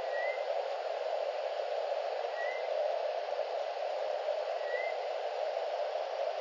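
Steady static-like hiss from a remote wildlife camera's microphone. A short faint chirp comes three times, about two and a half seconds apart.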